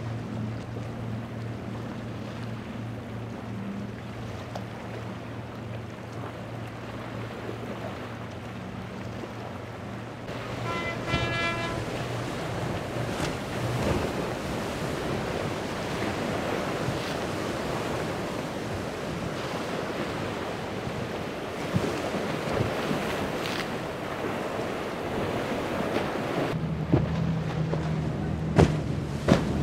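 Boats running hard through rough inlet chop: a steady outboard engine drone, then the rushing wash of a hull through waves with wind on the microphone, and near the end another engine drone with sharp slaps of the hull hitting the waves. A brief pitched tone sounds about a third of the way through.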